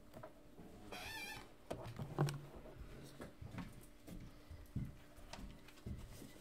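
Faint knocks, clicks and rustling of a laptop and papers being handled at a podium, with a short wavering squeak about a second in.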